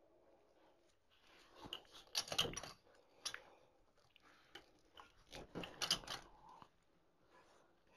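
Scissors cutting fabric ribbon, in a few irregular crisp snips and crinkles; the loudest bunches of cuts come about two seconds in and again about six seconds in.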